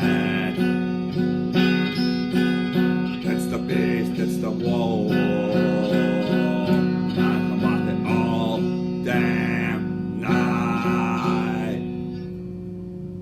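Guitar music: strummed guitar chords in a steady rhythm over sustained low notes, fading out near the end.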